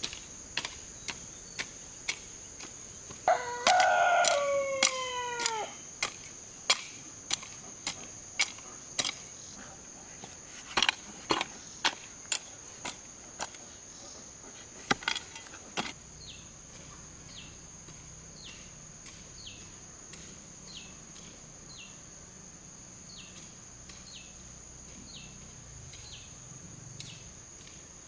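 A rooster crows once, a loud call falling in pitch near the end, about three seconds in. Sharp clicks repeat about twice a second and stop about sixteen seconds in, after which faint short chirps repeat, all over a steady high-pitched insect trill.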